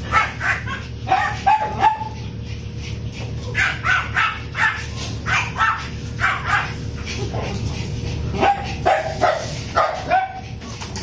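Dogs barking and yipping in rough play, in quick runs of short barks with brief pauses between the runs.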